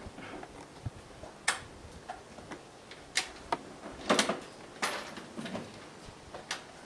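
A series of sharp clicks and knocks, irregularly spaced, about half a dozen with a cluster near the middle.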